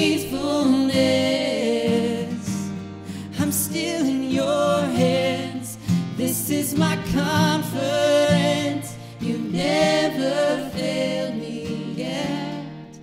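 Acoustic worship song: voices singing over a strummed acoustic guitar, with the singing easing off near the end.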